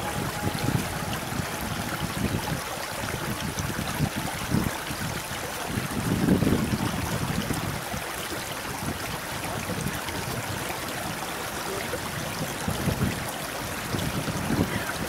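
Boeing 777-300ER's GE90 jet engines at takeoff thrust, heard from a distance as a steady rushing roar with low rumbles that swell and fade; the strongest swell comes about six seconds in.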